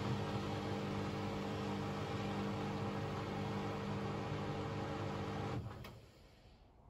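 Hoover VisionTech VTS715D21X washing machine running with a steady mechanical hum, which cuts off abruptly about five and a half seconds in as the machine stops near the end of its Cotton 60 cycle.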